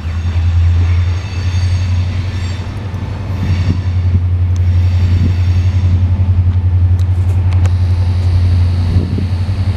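Diesel locomotive of a freight train running with a steady low drone as the train moves backwards past. A few sharp clicks come later on.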